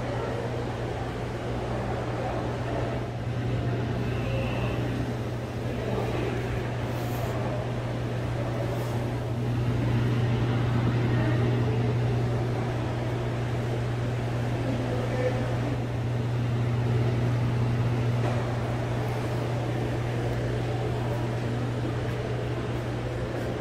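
Steady low mechanical hum with a faint murmur of distant voices.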